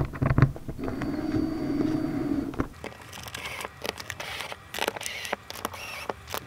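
Small clicks, taps and scrapes of nuts being threaded by hand onto the screws of a self-bailer fitted in a plastic dinghy hull. A steady hum runs for about two seconds near the start.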